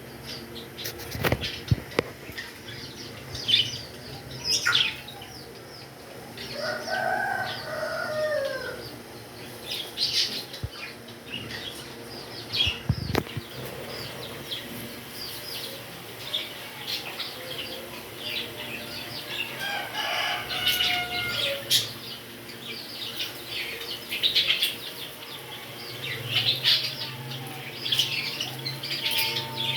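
Pet parrots chirping and calling over and over in short high notes, with a few longer gliding calls. A few sharp knocks come through near the start and about halfway through.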